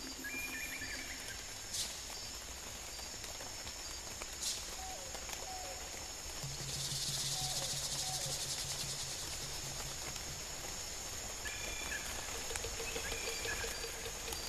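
Natural ambience of insects and birds: steady high insect trilling, with short bird chirps near the start and again near the end. About six seconds in, a louder insect buzz swells for a few seconds, then fades.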